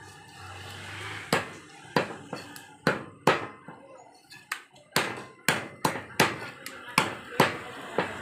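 Butcher's cleaver chopping country chicken into pieces on a wooden log block: sharp knocks, a few spaced ones at first, then coming faster, about three a second, through the second half.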